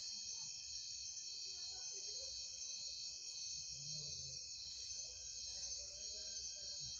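Crickets calling in a steady, high-pitched chorus, faint and unbroken.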